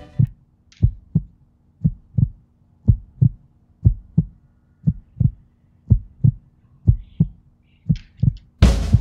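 Heartbeat sound effect: paired low thumps, lub-dub, about once a second, over a faint steady hum, giving way to music near the end.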